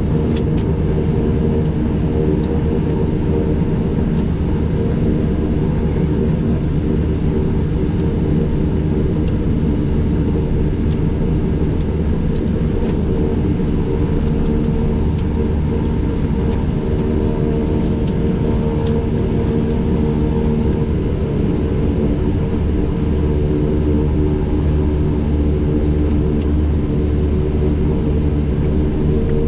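Twin Pratt & Whitney PT6A turboprop engines of a Beechcraft King Air A100 running at low power, heard inside the cockpit as a steady drone with a pitched hum.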